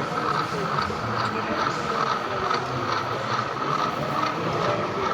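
Model train running on a layout: a steady motor whine with faint regular clicks, about two a second, as the wheels pass over rail joints.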